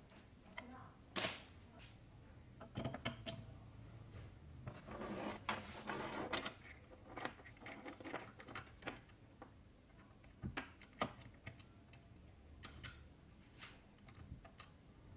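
Steel saw chain of an electric chainsaw rattling and clicking as it is handled and fitted around the guide bar and drive sprocket: scattered metallic clicks, with a longer rattle about five seconds in.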